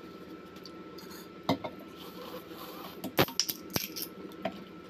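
Aluminium soda can being handled and opened by its pull-tab: a click about a second and a half in, then a sharp crack about three seconds in followed by a quick run of small clicks.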